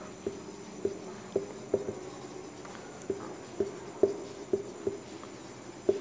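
Marker pen writing on a whiteboard: about a dozen short squeaking strokes, irregularly spaced, as a phrase is written out.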